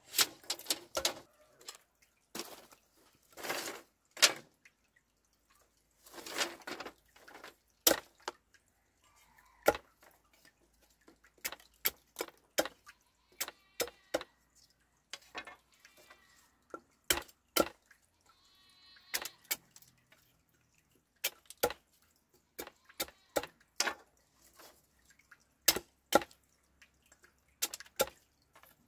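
A blade chopping, splitting and shaving bamboo by hand: irregular sharp cracks and knocks, with a few longer rasping strokes in the first several seconds.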